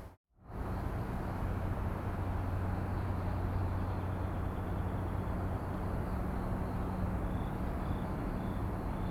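Steady outdoor background noise dominated by a constant low mechanical hum. It starts after a brief gap, and a few faint short beeps repeat near the end.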